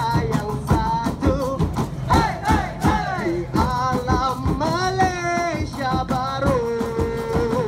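Live band playing a song with a steady drum beat and singing, closing on one long held note near the end.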